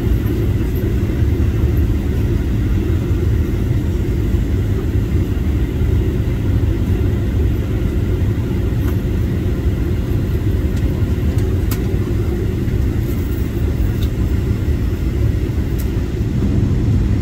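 Steady low rumble of an airliner's engines and rushing air heard inside the passenger cabin during the approach to landing, with a faint steady high whine over it.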